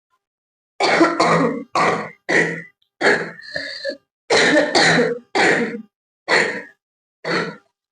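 A young woman coughs deliberately, about ten coughs in short runs, some in quick pairs. Her throat is already slightly hoarse.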